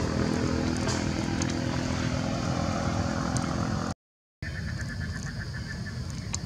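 A motor engine running steadily, which cuts off abruptly about four seconds in. A quieter stretch follows with faint fast ticking and a couple of sharp clicks.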